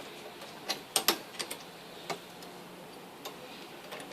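Light metallic clicks and taps, irregular and spaced out, of an Allen key working bolts in by hand on a motorcycle luggage rack.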